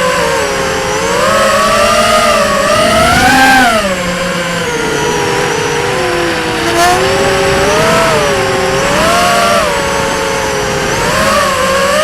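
Electric motors and propellers of an RC multirotor running. Their whine rises and falls in pitch every second or two as the throttle changes.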